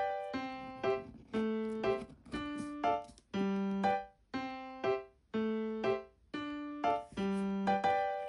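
Background music: a gentle keyboard tune with plucky, piano-like notes struck about twice a second, each fading before the next.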